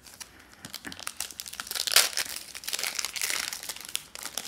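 Foil trading-card pack wrapper crinkling and crackling as it is handled and torn open, loudest about two seconds in.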